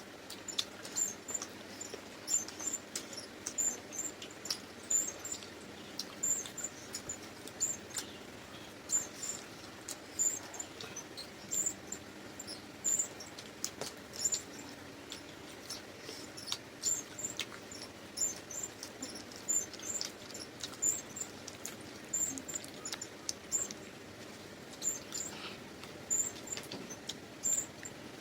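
Close-up eating sounds: chewing and lip-smacking, with short wet mouth clicks coming irregularly one or two a second, from people eating luchi with chicken curry.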